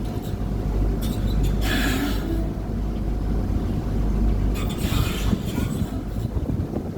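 Chao Phraya river tour boat under way, its engine giving a steady low rumble, with two brief rushing noises about two seconds in and about five seconds in.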